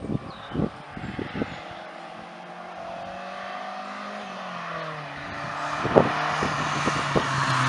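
Mk1 Volkswagen Golf's four-cylinder engine on a hillclimb run. The note drops as the driver lifts off for a bend, then rises and grows louder as the car climbs closer under power. A few sharp cracks come in the first second and a half, and another about six seconds in.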